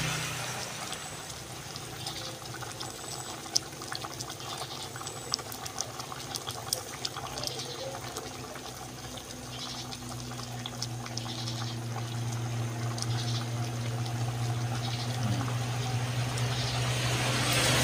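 Thick pork-rib curry simmering in an aluminium pot, bubbles popping in small irregular ticks over a steady low hum.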